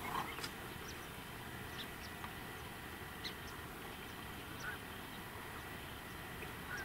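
Ducks calling softly on the water: a few short calls, one near the start, one about midway and one near the end, over low steady background noise.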